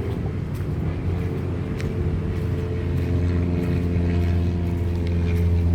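A motor vehicle engine running, a low hum that grows louder and steadier from about halfway through.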